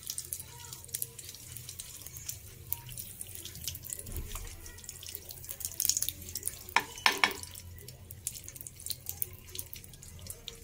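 Ghee melting in a hot non-stick kadhai, crackling and sizzling with many fine ticks. A metal spoon scrapes and knocks against the pan, loudest about six to seven seconds in.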